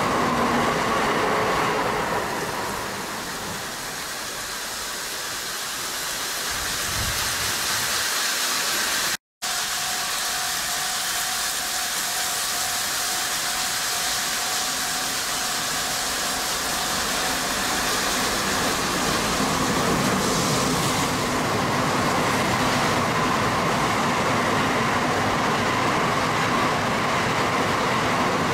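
N700-series Shinkansen trains running slowly through the station in heavy snow: the rush of one train passing fades, the sound cuts out for a moment about nine seconds in, then a second train approaches and passes, its rushing noise growing louder towards the end.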